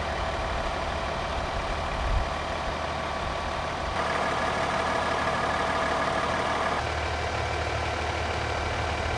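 Steady engine drone that takes on a brighter, busier tone from about four seconds in until nearly seven seconds.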